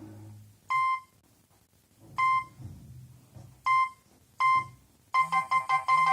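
Nokia 3108 mobile phone giving four short, evenly pitched beeps at uneven intervals, like keypad tones as its buttons are pressed. About five seconds in, a polyphonic ringtone preview starts playing.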